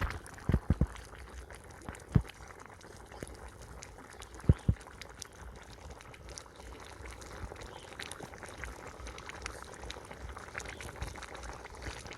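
Liquid bubbling in a cooking pot, a steady crackling hiss, with a few dull thumps: several about half a second in, one at about two seconds and two at about four and a half seconds.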